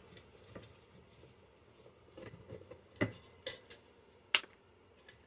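A few sharp metallic clicks and clinks of a screwdriver and small metal parts being handled while the screws are taken out of a microwave magnetron, the loudest near the end.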